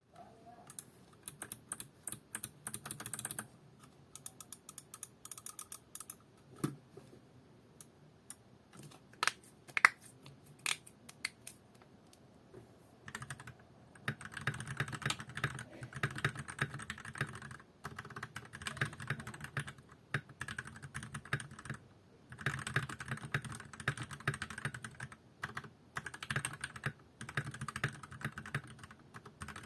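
Typing on a Tecware B68 mechanical keyboard fitted with lubed, filmed JWK OA linear switches and double-shot keycaps. A quick burst of typing comes first, then scattered single keystrokes, then steady fast typing from about halfway in, with brief pauses.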